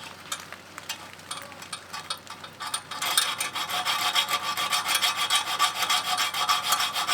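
A few light clicks and taps, then from about three seconds in a hacksaw cutting metal with steady back-and-forth strokes, about two a second.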